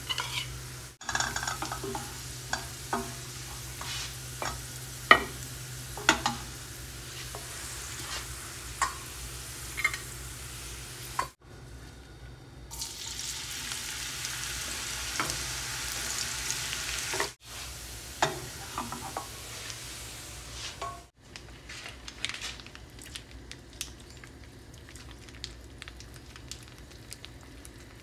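Hot oil sizzling as sliced garlic and then chopped shallots fry in a pan, with a metal spoon clicking against a bowl and the pan; the sizzle is loudest in the middle and quieter with light crackling near the end. Brief gaps break it up a few times.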